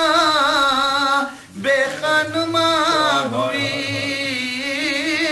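A man chanting an Urdu elegy for Imam Husain without accompaniment, drawing out long notes with a wavering pitch. He breaks off briefly for breath about a second and a half in, then takes up the line again.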